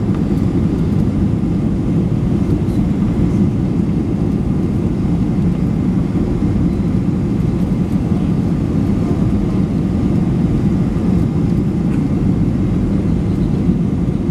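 Boeing 737-900ER in flight, a steady low rumble of its engines and airflow that holds level throughout.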